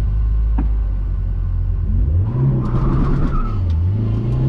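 Car engine heard from inside the cabin, idling at the drag-race start line, then revving up as the car launches about two seconds in. The pitch climbs, drops briefly at a gear change and climbs again under full acceleration.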